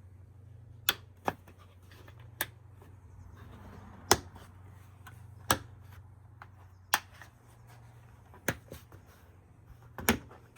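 Plastic push-pin retainer clips being pressed into the grille trim panels of a Toyota 4Runner, each one snapping home with a sharp click, about eight clicks spaced irregularly a second or so apart.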